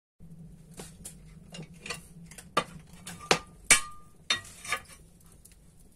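Metallic clinks and knocks of a brick stove's cast-iron firebox door being opened and a steel poker striking the door and firebox, over the crackle of burning wood. The loudest clinks come a little past halfway and ring briefly, with a steady low hum underneath.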